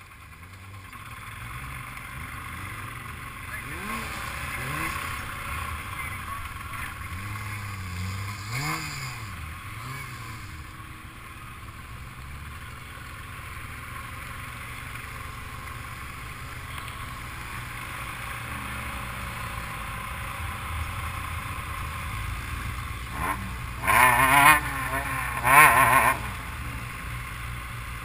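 Quad bike engine running at low speed, heard from on board, its revs rising and falling with the throttle. Near the end come two short, loud bursts of engine revving.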